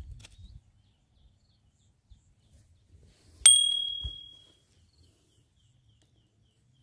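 A small bell struck once: a single bright ding about halfway through that rings out for about a second, followed by a soft thud.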